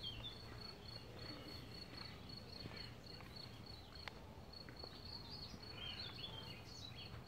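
A cricket chirping in a steady run of short, high-pitched pulses, faint, with a few soft bird chirps about six seconds in.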